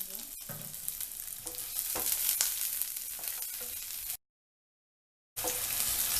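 Hot oil sizzling in a pan as chopped garlic, green chillies and vegetables sauté, with a spatula stirring and tapping now and then. The sound cuts out completely for about a second, about four seconds in, then the sizzling resumes.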